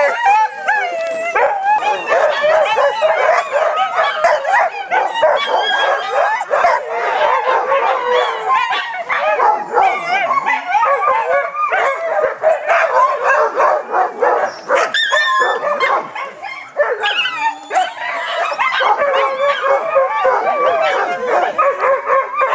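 Many huskies screaming, yipping and howling at once in a continuous, loud din, with a brief lull about two-thirds of the way through. This is the excited clamour of sled dogs while harnesses are being put on.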